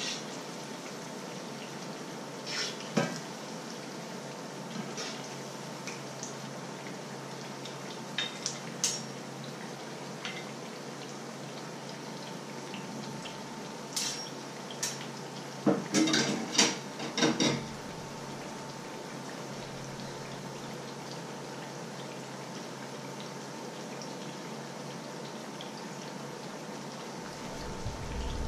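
Metal spatula and knife clinking and knocking against a frying pan in scattered strikes, with a cluster of the loudest knocks about two thirds of the way through, over a steady hiss of fritters frying in oil.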